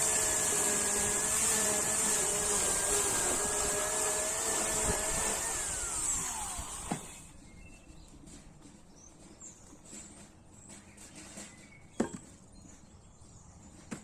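Chainsaw running at a steady speed without cutting, then switched off about six seconds in, its pitch falling as it winds down to a stop. Afterwards a few light knocks, with one sharp knock near the end.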